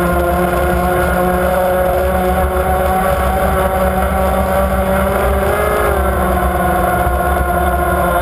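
Powerboat engine running steadily at speed, heard from on board over the rush of the hull through the water, its pitch dipping slightly and picking up again about six seconds in.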